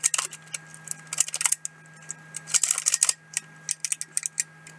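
Aolong pyraminx puzzle being turned by hand: quick runs of plastic clicks as its layers and tips snap round, in bursts separated by short pauses. A steady low hum runs underneath from a poor computer microphone.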